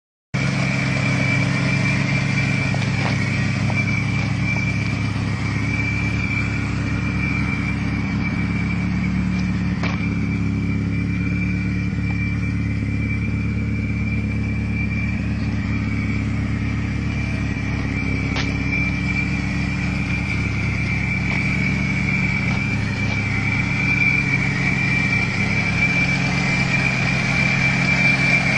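Volkswagen Golf Mk2's supercharged 1.8 16V G60 engine running steadily, as at idle, with a steady high-pitched whine over the engine note. It gets a little louder near the end.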